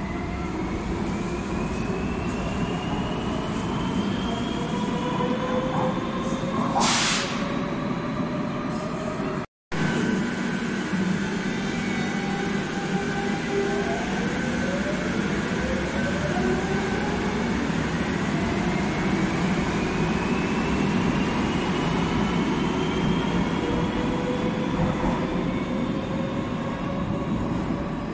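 Madrid Metro series 3400 electric train pulling out and accelerating. Its traction motors whine in several tones that rise together in pitch over a steady rumble of wheels on rail. A brief hiss comes about seven seconds in. The sound drops out for a moment near ten seconds, and then a second rising whine builds as the train runs off into the tunnel.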